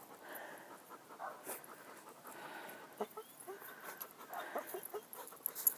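A dog panting faintly, breathy puffs about once a second, with short crunches of footsteps in snow.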